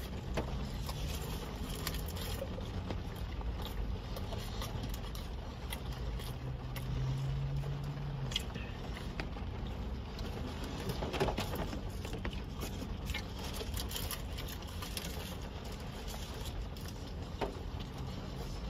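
Steady low rumble of a car interior, with scattered crinkles and clicks of a plastic snack bag being handled.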